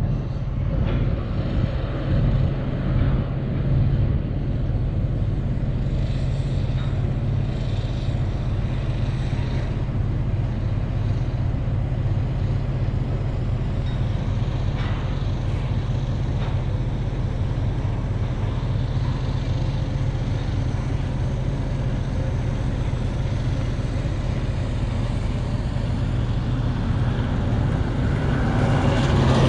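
Steady low engine drone heard from inside a vehicle's cab, with another vehicle passing close by and getting louder near the end.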